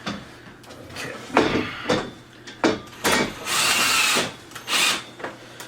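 Power drill running in short bursts, driving desk assembly screws partway in, with a few knocks from handling the wooden panels before it.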